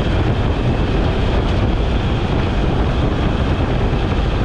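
A fishing trawler's engine running steadily: a loud, constant drone.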